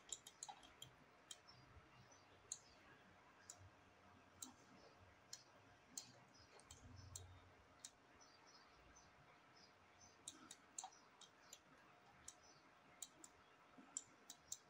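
Faint computer mouse clicks at irregular intervals, some in quick little clusters.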